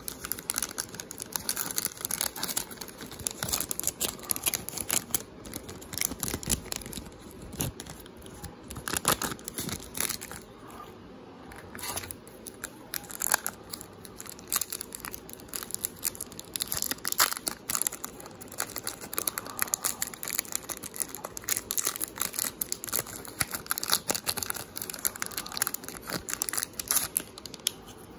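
Foil-lined trading card pack wrapper crinkling and crackling as it is torn and crumpled by hand, in irregular bursts of crackle.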